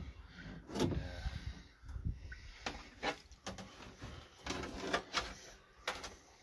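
Scattered light knocks, clicks and rustling: handling noise.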